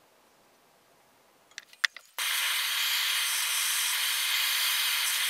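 A few sharp clicks, then a Bernzomatic propane torch burning with a steady hiss from about two seconds in.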